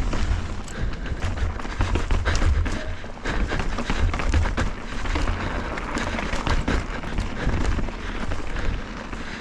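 Mountain bike rolling over rocky trail: tyres crunching over rock, with frequent sharp knocks and rattles from the bike, over a steady low wind rumble on the microphone.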